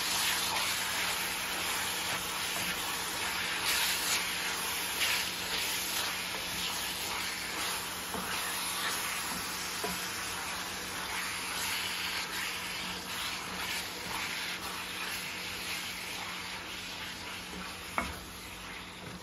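Ground beef sizzling in a cast-iron skillet, with a spatula repeatedly scraping and stirring the meat against the pan. The sizzle fades slowly, and one sharp knock comes near the end.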